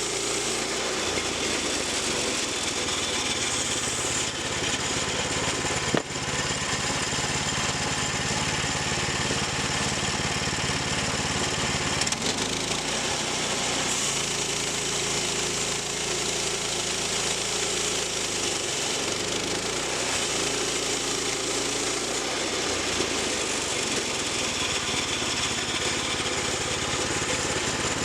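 Small gasoline engine running steadily. Its note shifts about a second in and again about twelve seconds in, and there is a single sharp click about six seconds in.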